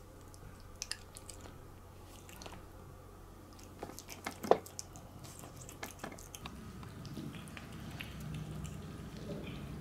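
A cat eating: moist chewing and lapping with scattered small clicks of teeth and food against the dish, and one sharper click about halfway through.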